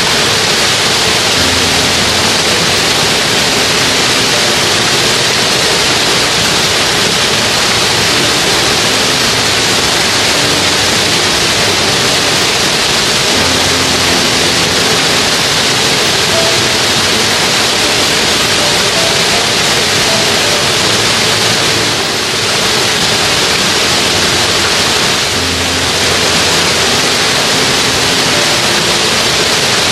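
Loud, steady rush of flowing mountain-stream water, a constant even hiss with no break.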